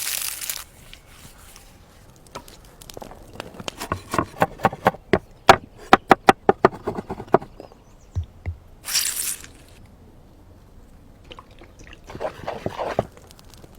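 A quick run of sharp knocks, about four a second, lasting a few seconds, then two short hissing, rustling scrapes.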